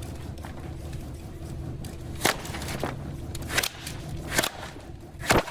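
A steady low hum with four sharp knocks or clacks spread through it, the loudest near the end.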